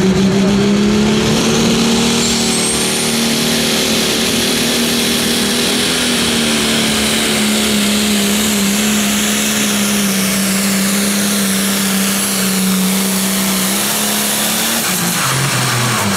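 Pro Stock pulling tractor's John Deere diesel engine running flat out at high, steady revs under load through a pull, with a high whistle above the engine note. Near the end the revs drop away as the pull finishes.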